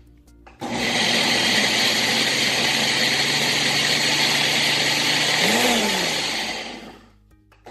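Blender motor running at full speed, grinding dry oats into flour. It starts about half a second in, runs steadily for about six seconds, then dies away near the end.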